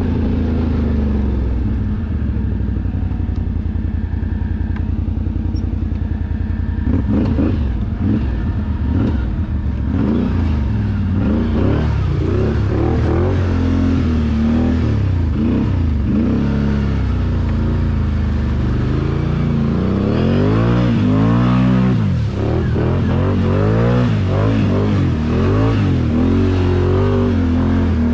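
Can-Am ATV engine running under way, steady at first, then revved up and down over and over as the throttle is worked, the pitch rising and falling repeatedly through the rest.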